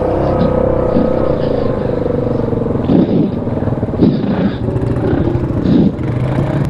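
ATV engine running under load in four-wheel-drive low, crawling up a rocky hill at low speed. A steady whine holds for the first three seconds or so, then the engine note surges several times as the throttle works over the rocks.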